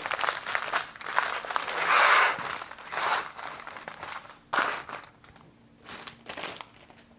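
Small plastic bags of diamond-painting drills crinkling and rustling as a bundle of them is handled. Loudest about two seconds in, then a few shorter, quieter rustles.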